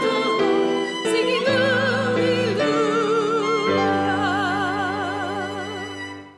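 Hymn sung with strong vibrato over steady sustained accompaniment chords, closing on a long held final chord that fades out near the end.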